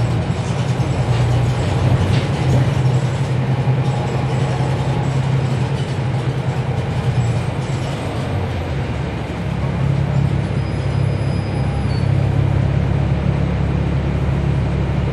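Cummins ISL9 diesel engine of a NABI 40-SFW transit bus running under way, heard on board as a steady low drone. It eases off after about eight seconds and pulls again about ten seconds in.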